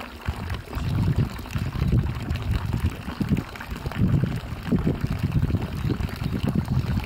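Water from a wooden fountain spout pouring steadily into a wooden trough, with wind gusting on the microphone in uneven low rumbles.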